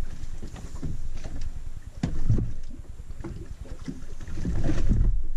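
Wind buffeting the microphone and water lapping at the hull of a small boat drifting with its engine off, the rumble swelling in gusts about two seconds in and again near the end. A few short knocks and clunks come from gear being handled on deck.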